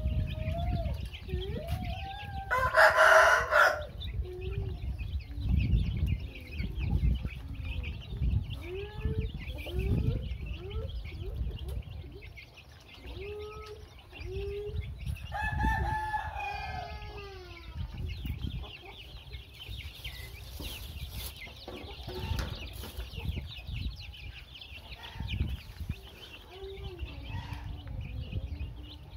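A flock of young chicks cheeping and peeping as they feed, with short rising and falling calls throughout. A louder, harsher call comes about three seconds in and another around sixteen seconds. Underneath are irregular soft taps of beaks pecking at the feed dish.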